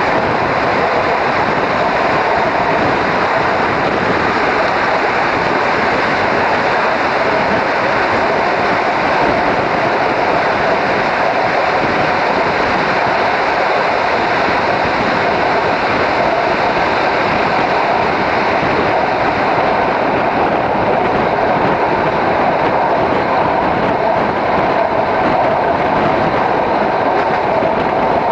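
ALn668 diesel railcar running at speed, heard from an open window: a steady, loud rushing rumble of wheels on the rails.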